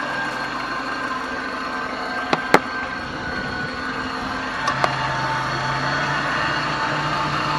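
2005 Suzuki APV engine idling with a steady noise from the AC compressor, whose bearing and magnetic clutch the owner takes to be broken. A few short, sharp clicks, two about two and a half seconds in and two near five seconds.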